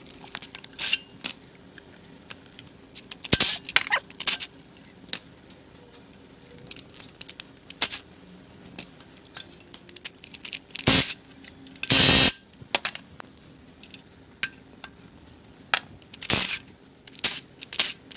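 Hand tools and metal engine parts clinking and knocking as accessories are unbolted from a V8 engine: a string of sharp clicks and clanks, with one louder burst lasting about half a second near the middle, over a faint steady hum.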